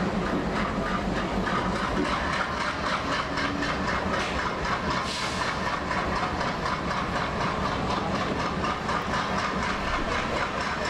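ALCO diesel-electric locomotive engine chugging in a steady, rapid beat as it hauls an express train away from a station. There is a brief hiss about five seconds in.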